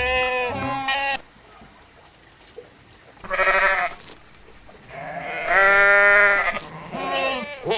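Sheep or goats bleating: several wavering calls with quiet gaps between them. The longest call comes a little past halfway and lasts about a second and a half.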